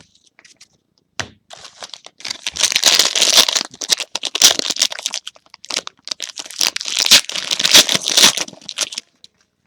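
Plastic wrapper of a trading-card pack being torn open and crinkled by hand, a dense crackling with many sharp crinkles that starts about two seconds in and stops shortly before the end.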